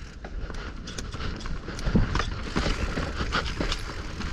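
Mountain bike rolling over rocks on technical singletrack: irregular clattering knocks from tyres striking rock and the bike rattling, over a steady low rumble.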